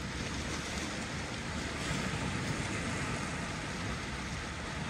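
Steady seaside ambience: wind and small waves washing against a rocky shore, an even rush with a low, unsteady rumble underneath.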